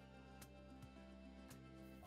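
Near silence with faint background music.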